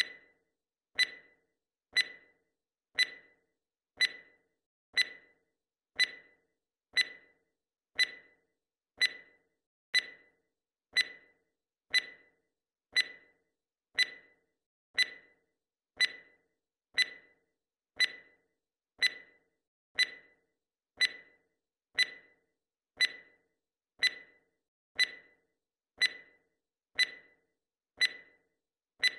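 Countdown timer's clock-tick sound effect: one short, sharp tick every second at a perfectly steady pace.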